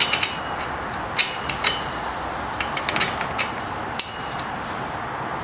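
Hex wrench working the seat post clamp bolt on a fixie bike: several sharp metallic clinks and taps at irregular intervals, each with a brief ring, over a steady background hiss.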